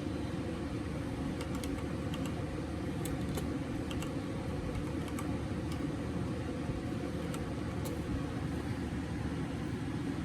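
Steady low mechanical hum, like a room fan, with a few scattered light clicks of a computer keyboard and mouse.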